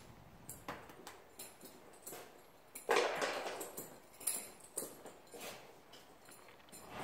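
A horse walking on soft arena footing: faint, muffled hoof steps and small clicks of tack. About three seconds in, a louder breathy rush that fades over about a second.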